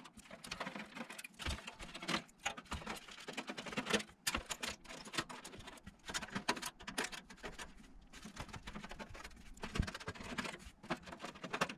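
Screwdriver undoing the screws that hold a motherboard in a PC case: irregular small clicks, scrapes and light knocks that go on throughout.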